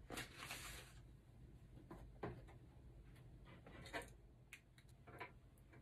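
Faint rustle of a small plastic packet being handled and set down on a table, then a few soft clicks; otherwise near silence.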